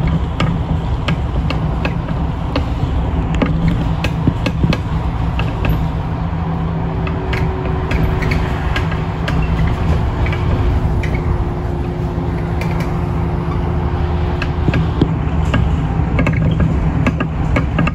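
Inside a city bus running at motorway speed: a steady low drone of engine and tyres, with frequent sharp clicks and rattles. A steady hum joins in for several seconds in the middle.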